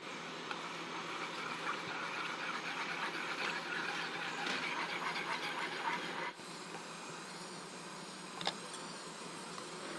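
A metal spoon stirring warm coconut milk in a pan, a soft scraping, swishing sound over a steady hiss. It stops suddenly about six seconds in, leaving the quieter hiss and one light click near the end.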